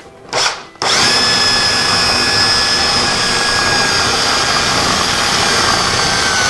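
Cordless drill spinning a side-cutting bit into drywall. There is a brief spin about half a second in, then a steady high whine from just under a second in that holds speed without letting up.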